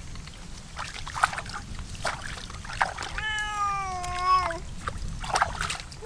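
Water splashing and dripping in short bursts as hands rinse the catch in a shallow stream. About three seconds in, one long high-pitched call rings out and sags slightly in pitch.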